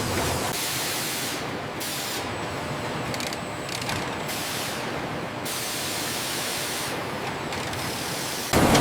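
Factory machinery noise: a dense mechanical clatter and hiss that changes character every second or two, getting suddenly louder near the end.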